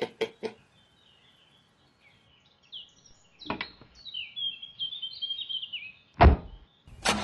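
Car door handle and latch clicking open, a dull thunk a few seconds later, and birds chirping, then a car door slamming shut with a heavy thump about six seconds in. A loud noise starts just before the end.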